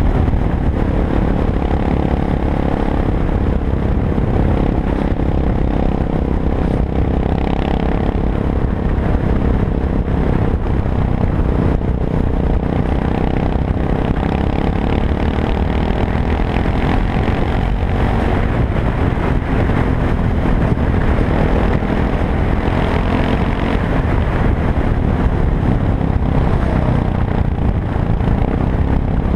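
Yamaha MT-03 motorcycle engine running steadily at road speed, heard from on board, its pitch drifting slightly up and down with the throttle, over road and wind noise.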